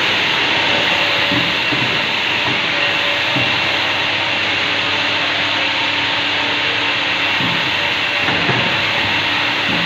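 CNC pipe bending machine running: a steady, loud hiss with a faint low hum and a few brief rising and falling tones.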